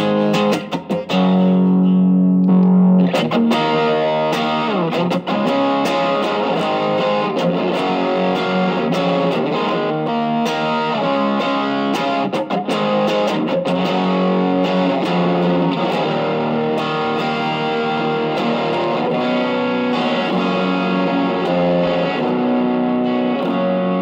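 Electric guitar, a Stratocaster, played through an Ibanez TS808 Tube Screamer overdrive pedal at a low gain setting, lightly overdriven by the pedal's 1980 Malaysian RC4558P op-amp chip. Picked notes and chords ring on, with a few sliding notes.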